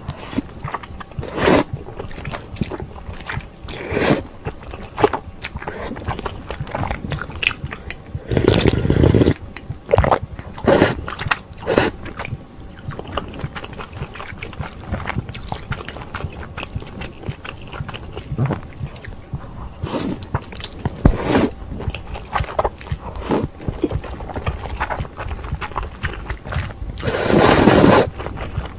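Close-miked eating of spicy instant ramen with dumplings and rice cakes: wet chewing and lip smacks with short sharp clicks, broken by a long slurp of noodles and broth about nine seconds in and another near the end as the small bowl is raised to the mouth.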